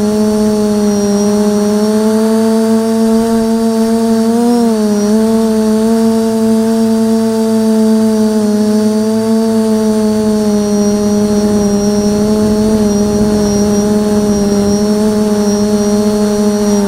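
Electric motors and propellers of a 550mm quadcopter heard from its onboard camera: a steady, loud hum at one constant pitch, with a brief dip and rise in pitch about four and a half seconds in as the throttle changes.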